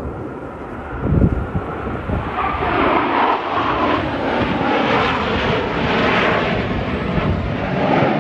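Blue Angels F/A-18 Super Hornet jets passing overhead in formation: a jet roar that builds from about two seconds in and stays loud. A short low thump comes about a second in.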